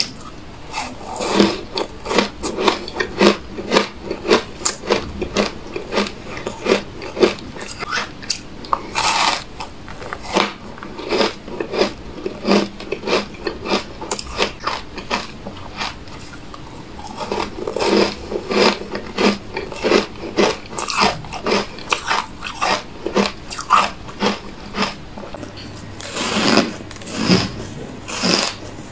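Close-up crunching of hard, frost-powdered ice chunks as they are bitten and chewed: a rapid run of sharp crunches with a lull of a few seconds about halfway through.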